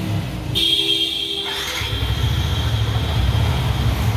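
Yamaha R15 V3's single-cylinder engine running at a standstill, its low throb growing louder from about two seconds in. A brief high tone sounds about half a second in.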